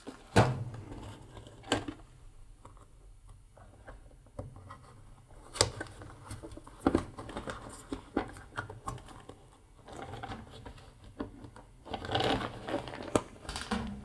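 Flexible plastic tumble dryer vent hose crinkling and rustling as it is handled and pushed onto the inlet of a plastic condenser box, with a few sharp knocks along the way and more rustling near the end.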